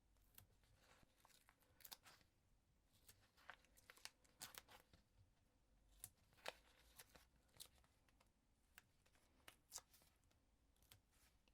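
Faint, scattered crinkles and small ticks of paper and card being handled as adhesive foam pads are peeled from their backing and stuck onto cut-out card pieces.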